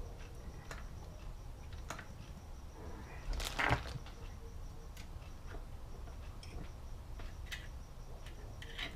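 Scattered light clicks and knocks of small metal engine parts being handled and fitted by hand, with a louder clatter about three and a half seconds in.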